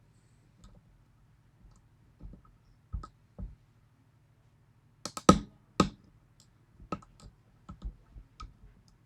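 Lock pick and tension wrench working the pins of a 6-pin Yale pin-tumbler lock: small, irregular metallic clicks and taps, with a quick cluster of louder clicks about five to six seconds in.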